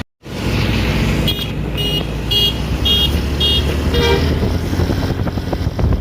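Bus basuri 'telolet' multi-tone horn giving a run of short toots, about two a second, then one lower-pitched toot about four seconds in, over the steady rumble of the bus engine.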